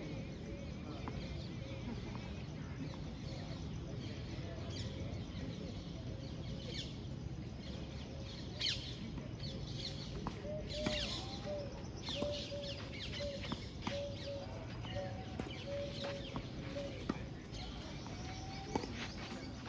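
Tennis rally on a clay court: sharp ball strikes off the racket every second or two, from about eight seconds in. A bird calls in a run of short repeated notes, about two a second, over a steady outdoor background hum.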